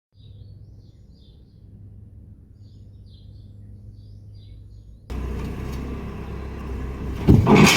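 Engine running at a low idle, with small birds chirping faintly over it. About five seconds in, a louder engine noise with clatter cuts in suddenly, and a couple of loud knocks come near the end.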